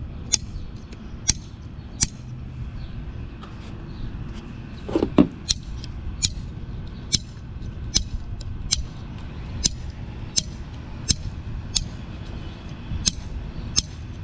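Repeated sharp taps on a shaken can of orange Fanta, about one a second, done to settle the fizz so it won't foam over when opened. A steady low rumble runs underneath, and a brief sound falling in pitch comes about five seconds in.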